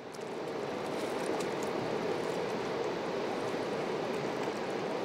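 Steady rushing of a river's flowing water, fading in at the start.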